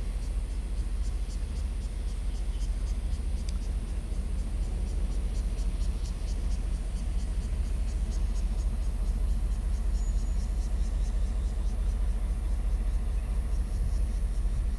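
Diesel locomotive approaching from a distance, a low engine rumble slowly growing louder as it nears. Insects chirp faintly and steadily over it.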